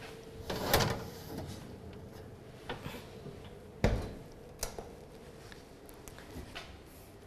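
Built-in oven door being opened, the rack slid out with the baking dish on it, and the door shut: a few knocks and metal clatters, the loudest just before four seconds in.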